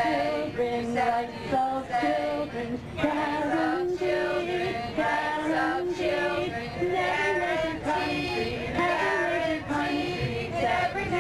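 Women's voices singing a slow melody, holding each note and stepping from pitch to pitch.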